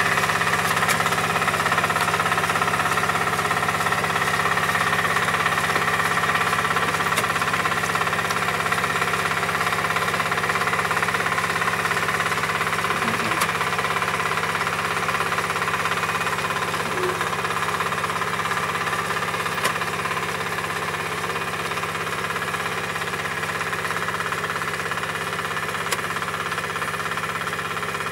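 Riding rice transplanter's engine running steadily.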